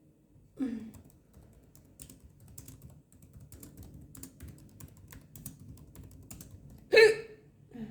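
A woman hiccups about half a second in. A few seconds of light, irregular clicking follow, then a loud hiccup near the end and a smaller one right after it.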